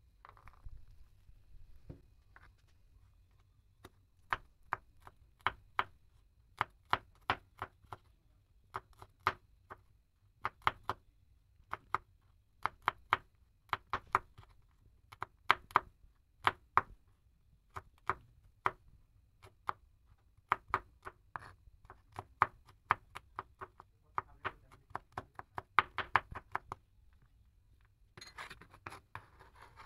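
Kitchen knife chopping garlic cloves on a plastic cutting board, sharp knocks of the blade on the board in quick runs of several strokes. Near the end the chopped garlic is scraped together across the board with the blade.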